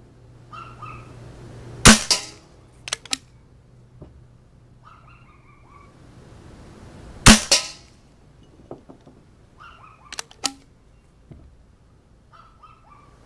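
A vintage Nelson pump-action paintball gun on 12-gram CO2 fires twice, two sharp pops about five seconds apart. Between shots there are softer sliding and clicking sounds of the pump being worked.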